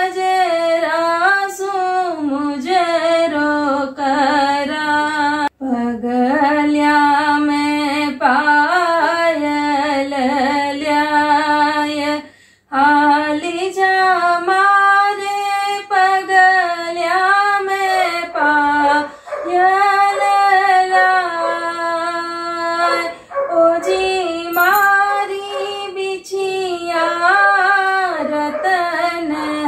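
A woman singing a Gangaur devotional folk song unaccompanied, one melodic line with long held notes, breaking off briefly twice for breath.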